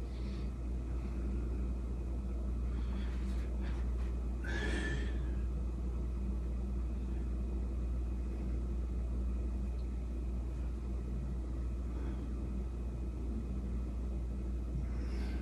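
Steady low hum of room tone, with a few brief faint sounds, the clearest about four and a half seconds in.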